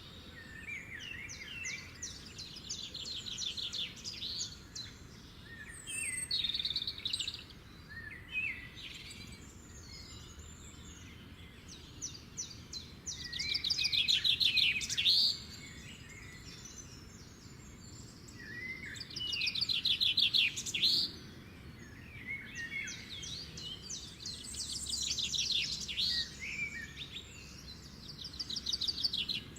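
Several songbirds singing and chirping, with fast rapid-note trills and short chirps overlapping throughout and the loudest trills a third and two-thirds of the way through.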